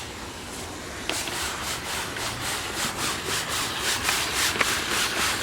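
Brushes scrubbing back and forth over a wet window screen, starting about a second in and going at about three strokes a second, with a few sharp clicks.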